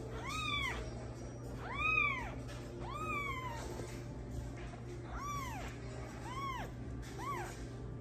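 Very young tabby kitten meowing six times. Each high call rises and then falls in pitch, and there is a pause of about two seconds midway through the series.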